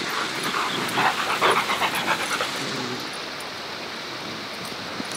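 A Rottweiler panting quickly near the microphone for about two seconds, then stopping, over a steady rush of water from a backyard waterfall.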